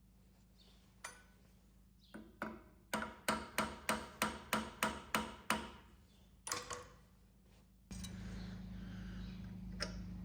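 A quick run of about a dozen light hammer taps on metal, each ringing briefly, about three a second, then one more tap. Near the end a steady machine hum with hiss starts abruptly.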